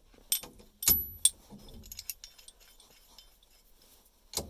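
Metal tool parts of a steering wheel puller and its bolts being handled, clinking and clattering. A few sharp metallic clinks come about a second in, the loudest with a brief ring, and another comes near the end.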